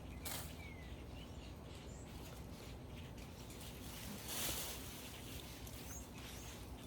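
Outdoor garden ambience with a steady low background and a few faint bird chirps, plus one short rustle about four and a half seconds in.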